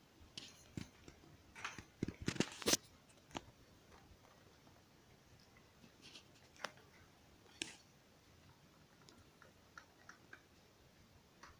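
Scattered light clicks and knocks: a quick cluster about two seconds in, then a few single clicks and faint ticks.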